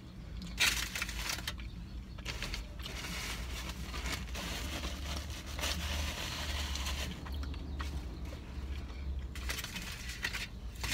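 Paper wrapper crinkling and rustling as a burrito is handled and re-wrapped, with chewing in between, over a low steady rumble.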